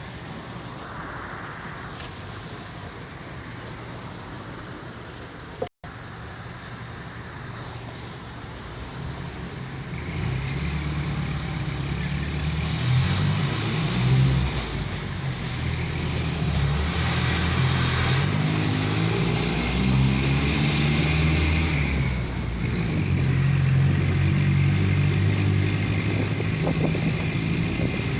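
Mercedes-Benz OF-1418 bus's six-cylinder diesel engine heard at the exhaust. It runs fairly quietly for about the first ten seconds, then louder, its pitch rising and dropping in steps as it pulls through the gears.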